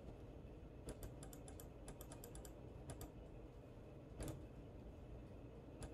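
Faint sharp clicks from working a computer: a quick run of them from about a second in, then a few single clicks spaced out.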